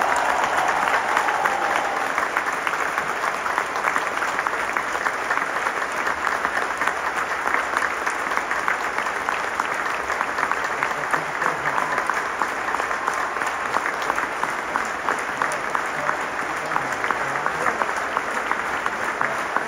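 A large concert audience applauding, a dense and steady mass of clapping. A last held note from the stage fades out under it in the first second.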